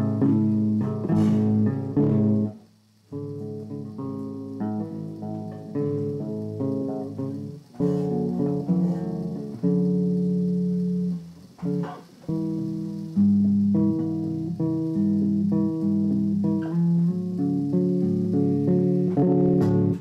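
Guitar plucked note by note in a melodic instrumental passage, with brief pauses about three seconds in and again near twelve seconds. It stops abruptly at the end.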